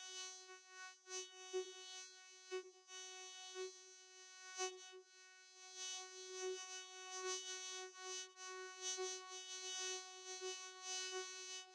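Synthetic vocoder tone held on one unchanging pitch with a buzzy stack of overtones, its loudness swelling and dipping irregularly several times a second.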